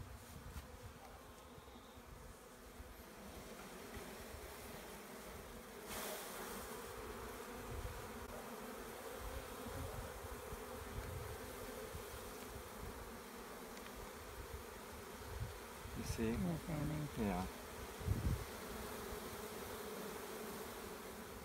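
Honeybee swarm buzzing, a steady dense hum from many bees as the cluster is scooped by hand and moved into a hive. A few louder, wavering sounds come through about sixteen to eighteen seconds in.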